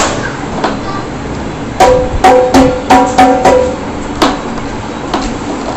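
Dhol drumhead struck, a quick run of about seven pitched beats with short ringing tones in the middle, and a few single knocks before and after.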